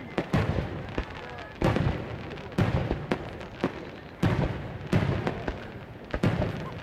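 Aerial fireworks shells bursting one after another, a loud bang roughly every second with smaller pops and crackle in between.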